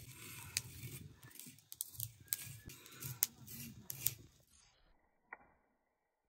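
Small seeds being dry-roasted on an iron griddle over a wood fire, stirred with a wooden stick: scraping with scattered sharp clicks of the stick and seeds against the pan. After about four and a half seconds the sound drops suddenly to much quieter, with one more click.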